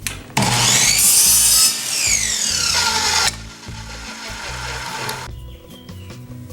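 Evolution Rage 3 miter saw spinning up and cutting a 45-degree miter through a piece of wood, then its motor winding down with a falling whine that stops suddenly about three seconds in. A few light clicks and faint background music follow.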